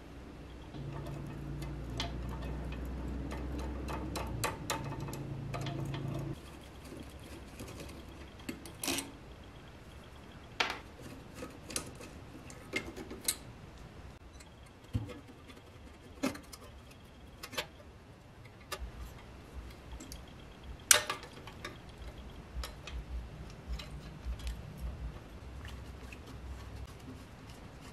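Scattered clicks and clinks of metal engine parts and a screwdriver being handled while a small engine is taken apart. A low steady hum runs for the first six seconds, then stops.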